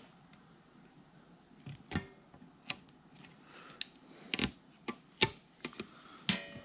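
Box cutter cutting through a rubber radiator hose while the hose is handled: a string of irregular short clicks and light knocks.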